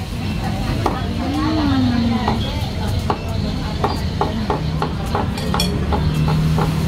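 Eatery ambience: murmured voices of other diners and frequent sharp clinks of spoons and forks on ceramic plates, over a low steady rumble.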